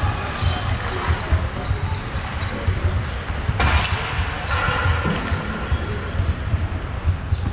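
Repeated dull thuds, irregular and continuous, with one sharp knock about three and a half seconds in.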